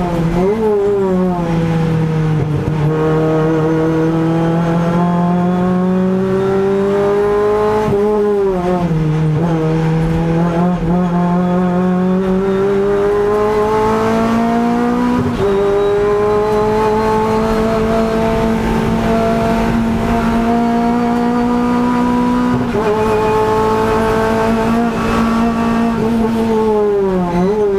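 Renault Clio Cup X85 race car's 2.0-litre four-cylinder engine under hard acceleration, heard from inside the stripped cabin. Its note climbs slowly in long pulls, dips sharply and climbs back twice (about 8 seconds in and near the end), jumps up in pitch about 15 seconds in and steps down about 23 seconds in as gears change.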